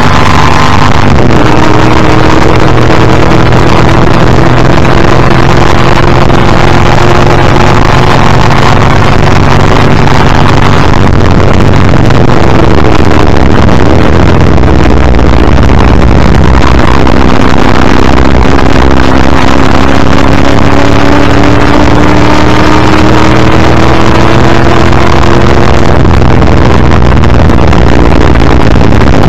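Ford Falcon XD Group C race car's V8 at racing speed, heard from the front bumper. The revs climb slowly through long pulls, with sharp drops in pitch at upshifts about a second in and again near the end, and a falling stretch in the middle where the revs come down. Heavy wind and road rush runs under the engine throughout.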